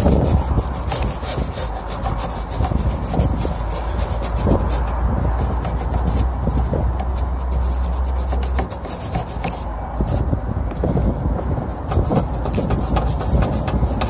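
Wire brush scrubbing a copper refrigerant line, rapid back-and-forth scraping strokes that clean the pipe for the leak repair. A steady low hum runs underneath and stops about two-thirds of the way in.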